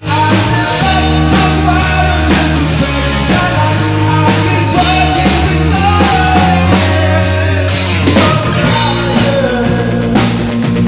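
Rock band playing live through a PA of Alto TS408 speakers and a Schalter Dao subwoofer. Drums, heavy bass and a wavering lead melody play loudly and continuously.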